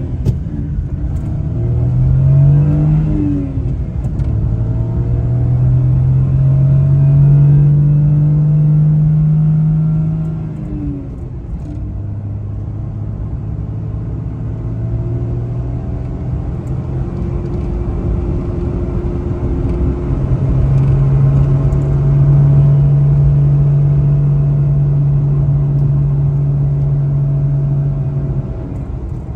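Suzuki Every kei van's small three-cylinder engine pulling away and accelerating. Its pitch climbs and falls back a few times in the first ten seconds or so as it goes up through the gears, then it runs at a steadier speed.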